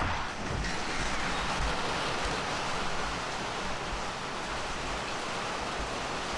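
Steady heavy rain from a storm, heard from under a metal-roofed porch.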